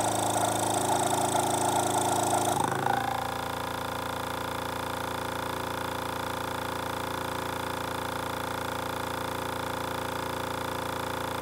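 Small 12 V electric brake-servo vacuum pump running, switched back on by its vacuum switch after the vacuum was released. About three seconds in its sound drops and settles into a quieter, steady hum.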